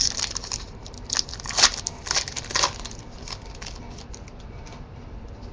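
A pack of Panini Crusade trading cards being torn open, the wrapper crinkling and tearing in a quick run of short rips over the first three seconds, the loudest about a second and a half in; after that only faint handling.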